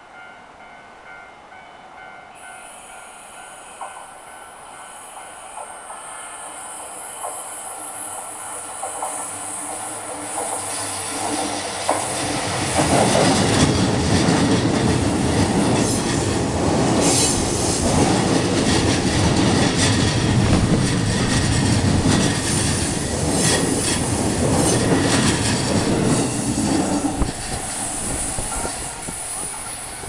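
JR Jōban Line electric train approaching a level crossing and passing close by. It grows steadily louder for about twelve seconds, then its wheels clatter over the rail joints for about fifteen seconds before the sound starts to fade near the end, with a repeating crossing warning tone ringing in the background.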